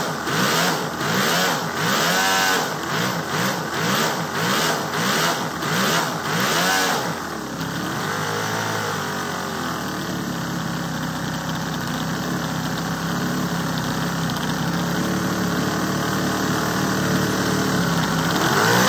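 Toyan X-Power model V8 four-stroke engine revved up and down in quick repeated blips, then settling about seven seconds in to steady running at fairly high speed, with one slower rise and fall in revs. It is running rich, still being run in, with its oil carried in the fuel.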